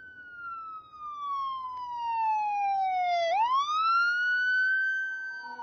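A siren wailing: one slow downward glide in pitch for about three seconds, then a quick sweep back up to a high held tone.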